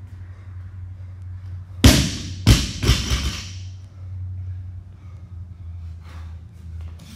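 Loaded barbell with rubber bumper plates dropped from overhead after a clean and jerk, landing on a rubber gym floor. One heavy thud about two seconds in, then two smaller thuds as it bounces and settles.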